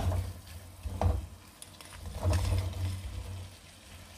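Fried, batter-coated fish pieces being tipped into a nonstick pan of sautéed onion-tomato masala and turned with a plastic slotted spatula: short knocks and scrapes against the pan, a sharp one at the start, another about a second in, and a longer run of stirring near the middle.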